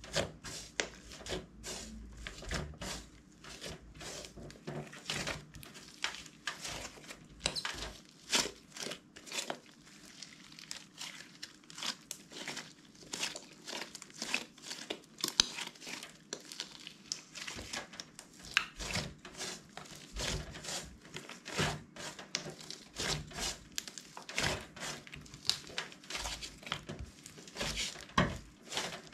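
Slime being squeezed, pressed and stretched by hand, making a dense run of irregular wet clicks and pops, several a second.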